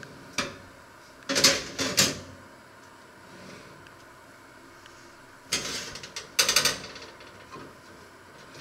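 Metal oven baking tray being handled and slid on its shelf runners, scraping and clattering in three bursts. There is a short knock about half a second in, a loud rattle between about one and two seconds, and another rattle from about five and a half to seven seconds.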